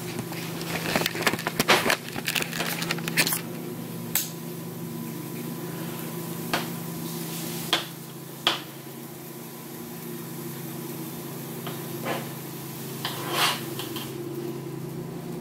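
Plastic toy packaging crinkling and rustling as it is handled, a busy flurry of crackles in the first few seconds, then only a few short crinkles, over a steady low hum.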